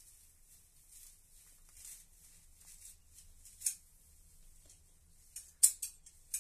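Young rabbits nibbling fresh grass: faint crisp crunching and rustling of the stems, with a few sharper clicks about three and a half seconds in and several more near the end.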